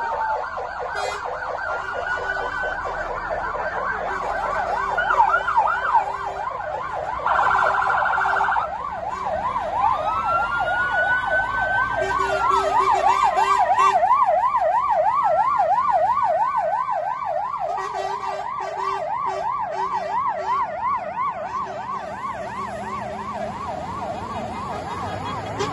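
Fire engine sirens wailing together as a convoy moves off: a fast up-and-down yelp runs throughout, with slower rising and falling wails over it and a brief blare about seven seconds in.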